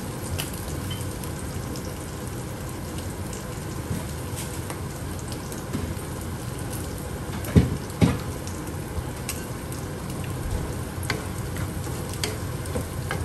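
Steady sizzling of sea bass fillets and spinach in sauce frying in two pans, with two sharp knocks a little past halfway. Near the end, a wooden spatula stirs the spinach in its pan.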